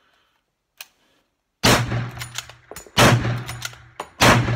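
Three shots from a Winchester Model 70 bolt-action rifle in .300 Win Mag, fired in quick succession about 1.3 seconds apart, each with a short echo. Metallic clicks of the bolt being worked come between the shots, and a light click comes before the first one.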